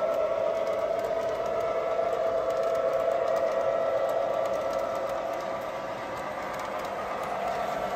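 O scale model freight train running past on the layout track: a steady whine with the rolling of the cars' metal wheels on the rails, easing slightly a little past the middle.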